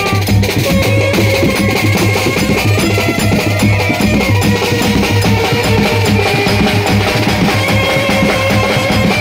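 Street brass band playing. Its drums, a bass drum and a snare, carry a fast, dense, steady beat, with a few long held notes above it.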